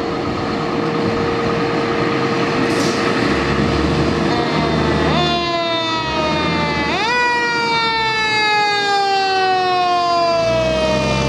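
Fire truck's mechanical Q siren spinning up quickly about five seconds in and again about seven seconds in, each time winding down in a long, slowly falling whine. Under it is the rumble of the truck's engine as it pulls out, with a steady tone through the first few seconds.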